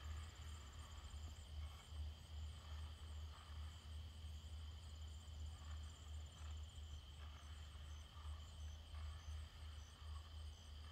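Faint, steady trilling of insects in a late-summer field, with a short, regularly repeating chirp higher up, over a low steady rumble.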